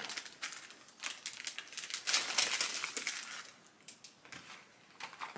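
Plastic snack packaging crinkling and rustling as it is handled and rummaged through, loudest for a second or so about two seconds in, then fading to faint rustles.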